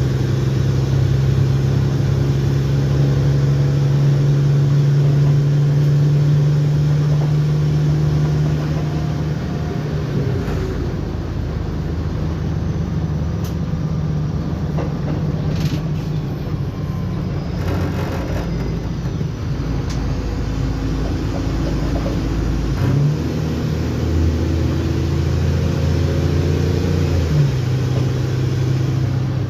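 Mercedes-Benz O-500M city bus's diesel engine and Voith automatic gearbox running under way with a steady hum. The engine note drops about a third of the way in and stays lower and rougher for a while. It then picks up again, with a step in pitch as the gearbox shifts near the end.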